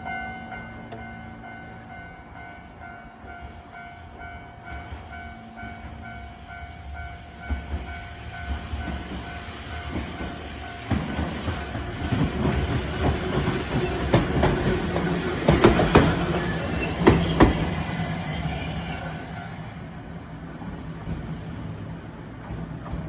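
Level-crossing warning bell ringing in a fast, even pulse as a Randen (Keifuku Electric Railroad) tram approaches and rolls slowly through the crossing. Its wheels give several sharp clacks over the track about two-thirds of the way in, where it is loudest, and the running noise then fades as the tram moves off toward the terminus.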